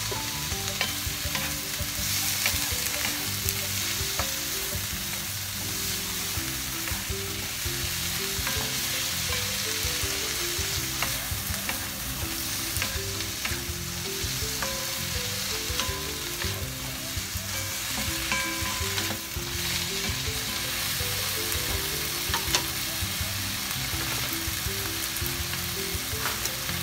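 Vegetables stir-frying in a nonstick wok, sizzling steadily, while a wooden spatula turns them with scattered scrapes and taps against the pan.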